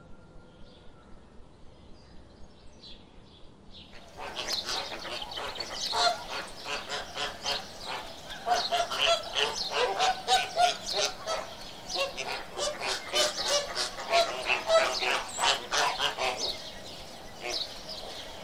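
A flock of flamingos honking and calling over one another in a dense chatter of short goose-like calls, which starts abruptly about four seconds in; before that, only a few faint bird calls.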